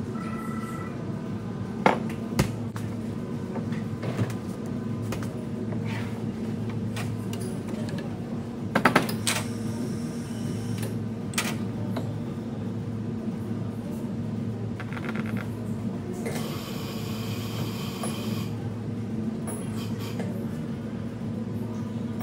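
Cafe work sounds: a steady machine hum under scattered clicks and knocks of cups, utensils and cupboard doors, with a brief clatter about nine seconds in and a roughly two-second machine whir about three-quarters of the way through.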